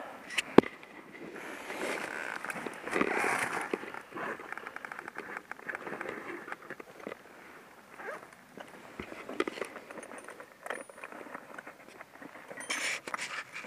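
Irregular handling noise: rustling of riding gear and gloves, footsteps on dry leaves and stones, and scattered clicks, including one sharp click about half a second in and a quick run of light ticks midway.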